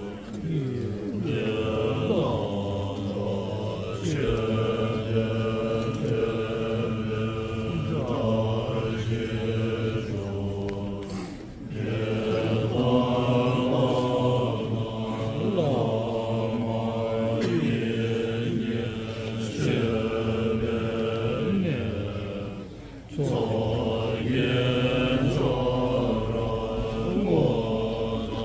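Tibetan Buddhist monks chanting together, several voices in a steady group chant with gliding pitches, pausing briefly twice.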